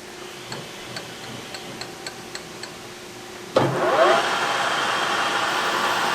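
A few faint light clicks, then a metal lathe's spindle motor starts up sharply about three and a half seconds in, with a brief rising whine, and runs steadily. The spindle is spinning so the sharp edge of the aluminium stock can be deburred with a file.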